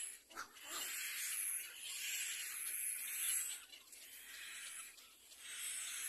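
Little black cormorant chicks in the nest giving raspy, hissing calls. The hiss runs for a couple of seconds, fades, and starts again near the end.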